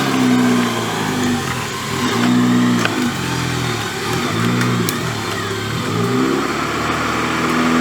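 Off-road vehicle's engine revving up and falling back about five times in a row, as the throttle is worked on and off.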